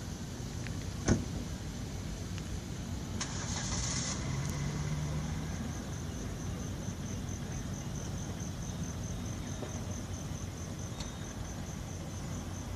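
Low steady rumble of car engines and road traffic around a carpark at night. A single sharp knock sounds about a second in, and a brief hiss comes around three to four seconds in.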